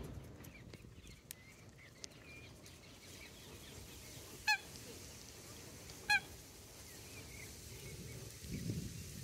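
Two short honking calls from a waterbird, about a second and a half apart, each one brief and clear over a low steady background rumble. A few faint, thin chirps from small birds come earlier.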